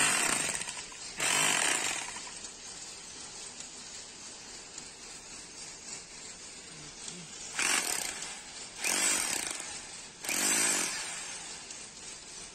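INGCO 1500 W rotary hammer driving a flat chisel bit into hard-packed ground, chipping it up. It hammers in five short bursts of under a second each: two in the first two seconds, then three close together about eight to eleven seconds in.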